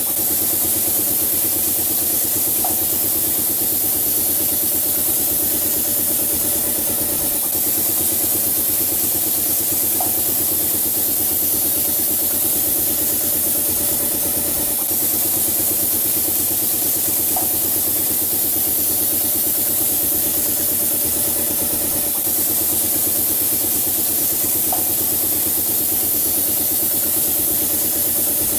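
Air compressor running steadily, with a constant high hiss of compressed air through the paint spray gun. A faint short chirp repeats about every seven seconds.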